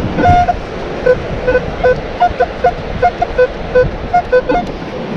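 Metal detector giving about a dozen short target beeps, mostly at one low tone with a few at a higher tone, as the coil passes over a buried target that reads high on the display. Steady surf and wind noise underneath.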